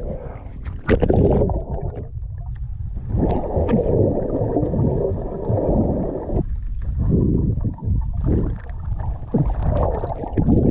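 Action camera plunging into the sea with a splash about a second in, then the muffled underwater rumble and gurgling of moving water heard through the submerged camera.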